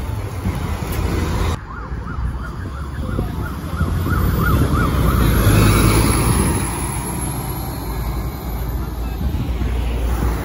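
Diesel city bus driving slowly past close by, its engine rumble loudest as the rear engine bay goes by about halfway through. A siren yelps in the background for a couple of seconds early on the bus's pass, sweeping up and down about four times a second.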